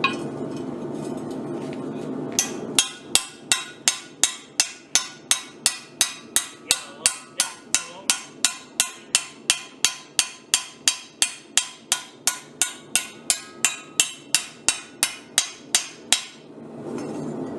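Blacksmith's hand hammer striking steel on an anvil in a steady rhythm, about three ringing blows a second for some thirteen seconds, hammering down and rounding the edges of a steel cross piece. A steady low hum comes before the hammering starts.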